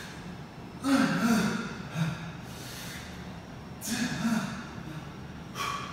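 A man breathing hard under exertion, with about four forceful, partly voiced exhales or grunts spaced one to two seconds apart as he works through a high-rep set of dumbbell curls.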